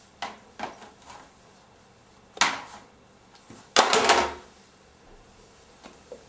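A baby handling and dropping small hard objects around a wooden TV cabinet and a toy box: a few light taps, a sharp bang about two and a half seconds in, then a loud rattling clatter just before four seconds.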